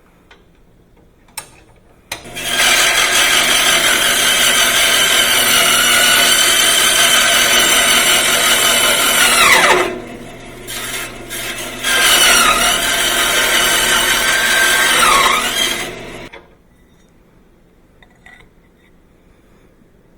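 Electric power tool working steel stock, run twice: a steady high whine for about seven seconds that falls in pitch as it is switched off, a short pause, then a second run of about three and a half seconds that also winds down.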